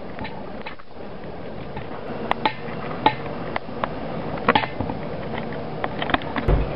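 Steady background hiss with scattered light clicks and taps, and a low thump near the end.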